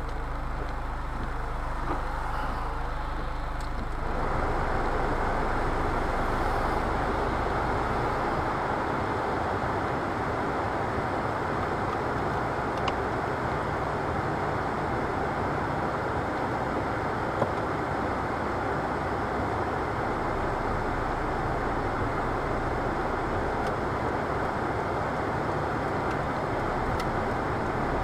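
Steady rain noise heard from inside a stationary vehicle's cabin, with a low steady hum underneath. It gets louder about four seconds in.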